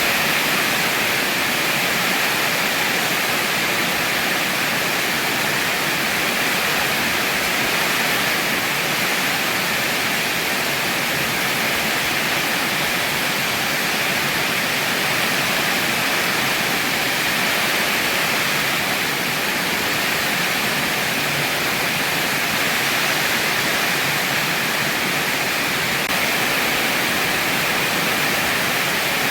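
Heavy rain falling steadily: a dense, even hiss with no let-up or thunder.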